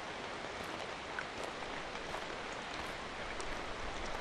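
Walking footsteps on a dirt and rocky forest trail, a step about every three-quarters of a second, over a steady hiss of light rain.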